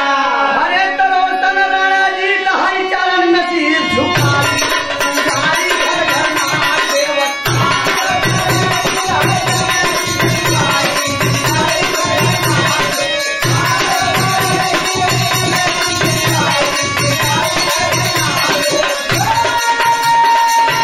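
Instrumental accompaniment of a Bhojpuri birha troupe: held melody notes with some gliding pitches, then hand drums coming in about four seconds in and keeping a steady beat under the melody.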